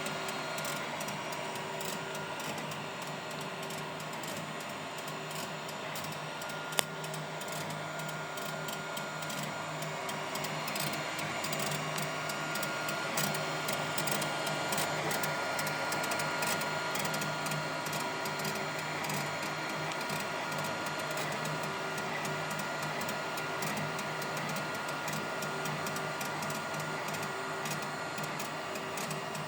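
Creality Ender 3 3D printer printing: its stepper motors whine in tones that shift and come and go with the moves, over a steady whir. One sharp click about seven seconds in.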